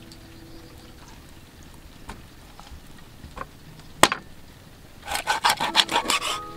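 Cleaver blade scraping along a snake's skin on a wooden chopping board: one sharp knock about four seconds in, then a run of quick, rasping scrapes near the end.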